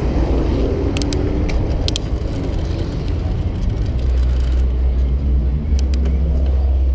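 Road traffic: cars running close by, with a steady low rumble that grows heavier over the second half, and a few sharp clicks about a second in and again near the end.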